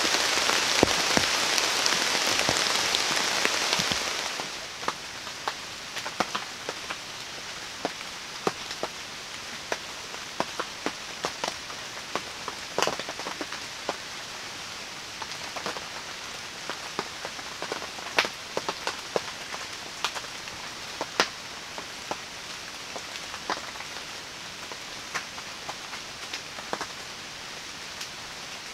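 Rain falling in a forest, a steady hiss that drops sharply about four seconds in. After that it is a quieter hiss heard from inside a canvas bell tent, with scattered single drops tapping sharply on the canvas.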